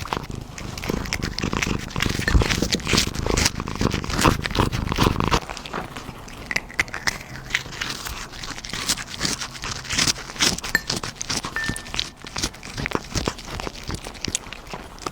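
A cat eating a fried egg greedily, with many quick wet chewing and smacking clicks. For about the first five seconds a low, rough huffing growl runs under the chewing, the excited 'huhu' noise a cat makes over food it loves.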